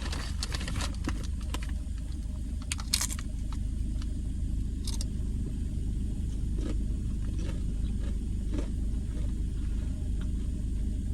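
Crinkling of a Doritos chip bag, then scattered crisp crunches of tortilla chips being bitten and chewed, over a steady low rumble.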